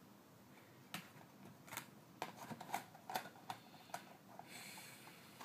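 A run of small clicks and taps, about a dozen over three seconds, from things being handled close to the microphone, then a brief hiss near the end.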